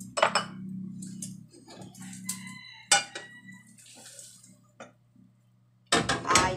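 A frying pan clinks against a ceramic plate as an omelette is slid out onto it, with several sharp knocks. The loudest comes about three seconds in.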